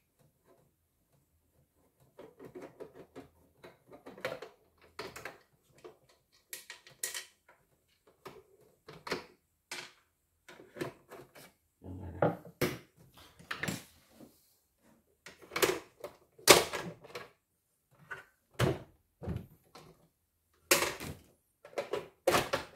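Irregular clicks, knocks and clatters of a screwdriver and the plastic casing of a computerized embroidery machine being handled on a wooden workbench during disassembly. The knocks get louder and more frequent in the second half.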